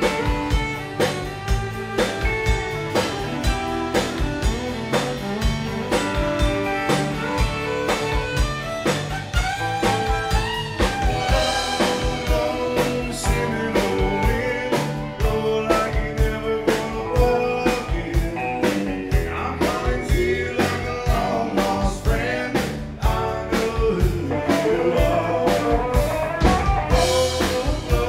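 Live country band playing, guitars over a steady drum-kit beat.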